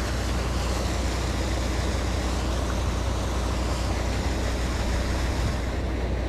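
Steady rush of water pouring over a creek falls, an unbroken roar with a strong low rumble.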